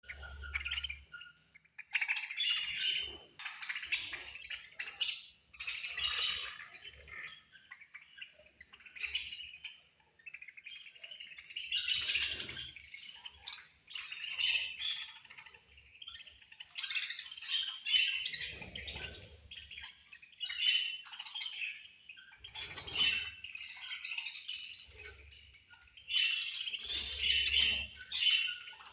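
A group of budgerigars chirping and chattering in busy, irregular bursts with brief pauses, as budgies do at feeding time.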